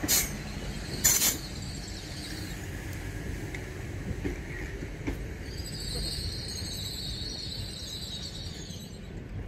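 Hull Trains Class 802 bi-mode unit running slowly along the platform with a steady low rumble. There is a brief loud hiss about a second in, and a faint high wheel squeal in the second half as the sound fades.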